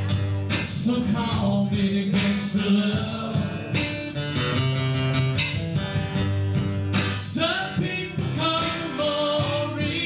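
A live band plays a song: a strummed acoustic guitar with singing over it.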